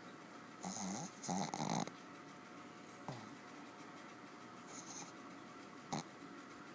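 A dog snoring heavily in deep sleep: two snores close together about a second in, a fainter one around five seconds, and a brief sharp sound near the end.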